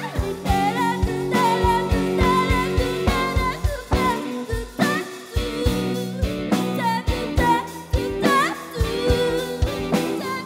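Band music with a steady beat of drums and bass under guitar chords, and a melody line that slides between notes.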